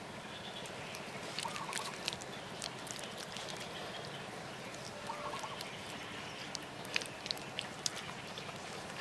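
Wet clay being smoothed and pressed by hand, giving scattered small sticky clicks and slaps, a few louder near the end. A bird calls briefly twice, about one and a half and five seconds in, over a steady background hiss.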